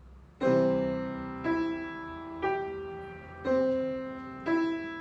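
Yamaha grand piano: a C major chord struck about half a second in, then the chord played broken, one note about every second, each ringing on over the held chord.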